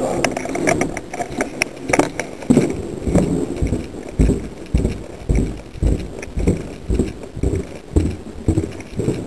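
Footsteps on a hard floor, evenly paced at about two a second, picked up by a camera worn by the walker. Rustling and sharp clicks of handled gear come before the steps settle into their rhythm.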